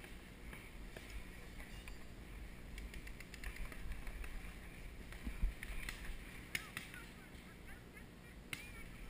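Paintball markers firing in the distance as scattered faint pops, with a dull thump about halfway through.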